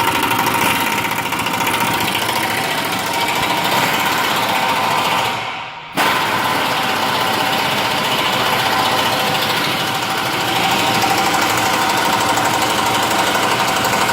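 Impact wrench hammering on a truck's torsion bar adjuster bolt, unwinding it to lower the ride height. It runs in two long bursts with a short break about five and a half seconds in.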